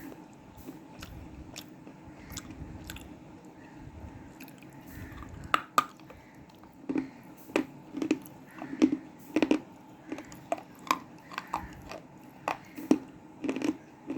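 Crunching as a person bites and chews pieces of black cement slate. It is quieter with faint clicks at first, then from about halfway in come loud, sharp crunches about every half second.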